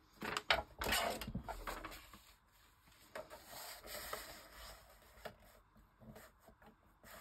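Paper being handled and cut with scissors: a quick run of small clicks and rustles in the first two seconds, a softer scraping stretch in the middle, then a few light taps of tools on the table.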